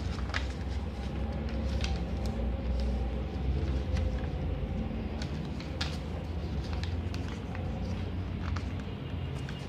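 Origami paper rustling and crinkling as it is folded and creased by hand, with scattered short crackles and taps on the table. A steady low rumble runs underneath.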